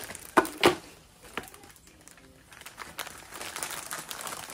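Plastic mailer bags crinkling and rustling as parcels are unpacked. There are two sharp, loud crackles under a second in, a brief lull, then light continuous rustling from about three seconds in.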